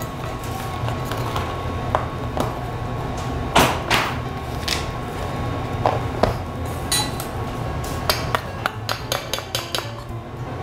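Light taps, knocks and clicks of a small hand sifter and plastic container while powdered sugar is dusted over a cake, with a quick run of ticks near the end, over a steady low hum.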